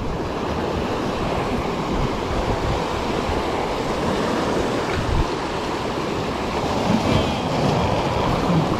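Ocean surf breaking and washing over shoreline rocks, a steady rush of water, with wind rumbling on the microphone.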